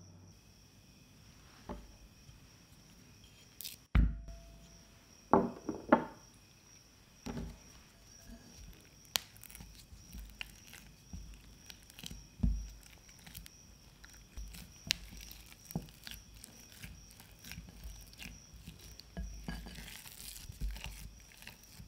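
Silicone spatula mashing and spreading blocks of cream cheese in a glass bowl: irregular soft scrapes and small taps against the glass. A sharp knock comes about four seconds in, with a few more knocks just after.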